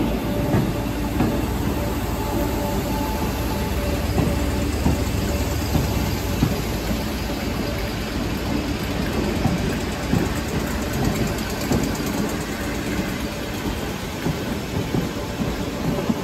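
Merseyrail Class 508 third-rail electric multiple unit departing and running past, a steady running noise with irregular clicks of its wheels over rail joints and points.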